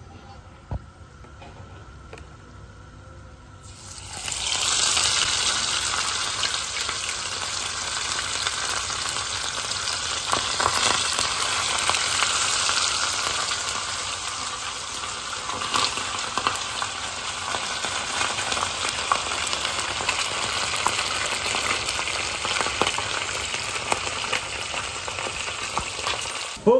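Rainbow snapper frying in hot oil in a pan: a loud, steady sizzle that starts suddenly about four seconds in.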